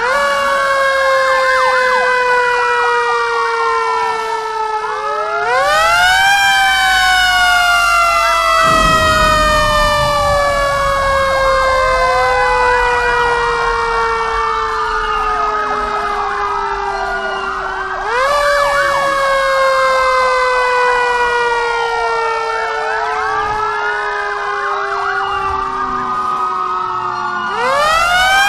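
Fire engine siren sounding: the pitch jumps up and then slides slowly down over about ten seconds, restarting three times. A second, faster wavering siren tone weaves over it. A low rumble comes in for a few seconds in the middle.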